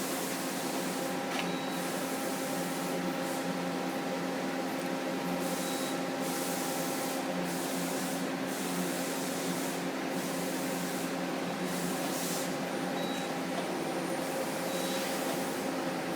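Ball screws and servo drives of a 1998 Okuma Crown 762-SB CNC lathe moving the axis slides back and forth: a steady mechanical hum with a high hiss that swells and fades every second or two as the slides move and reverse. The ball screws sound pretty good, with no sign of wear.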